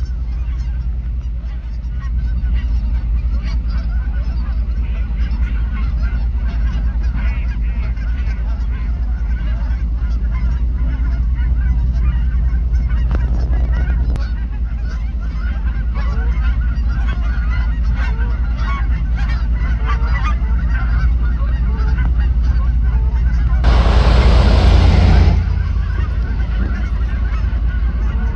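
A flock of Canada geese honking continuously as they fly over and come in to land, over a steady low rumble. Near the end a loud rushing noise lasts about a second and a half.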